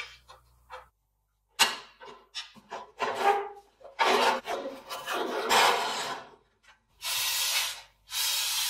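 A few light clicks of a spanner on a rusty bolt. Then several seconds of rusty steel motorcycle parts scraping and rubbing, the loudest part. Near the end come two hissing bursts of WD-40 aerosol spray into the frame's steering head, each about a second long.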